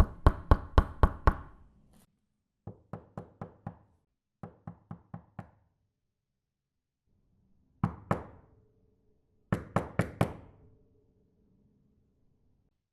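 Knocking on a door in several separate sets of quick raps: about six loud knocks, then two quieter sets of five, then a double knock and a set of four. A faint steady hum lingers after the last two sets.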